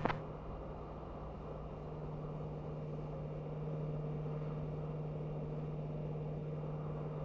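Vehicle running at highway speed: a steady low engine hum with a fainter higher tone over an even rush of road noise.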